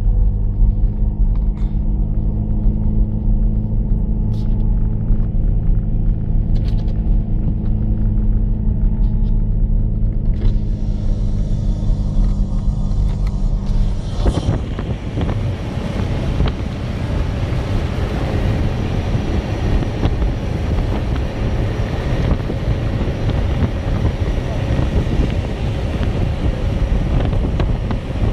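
Off-road 4x4's engine running at a steady drone, heard from inside the cab while driving slowly through deep snow. About halfway through, the steady hum gives way to a louder, rough rushing noise of wind on the microphone and tyres in snow as the camera is held out of the vehicle.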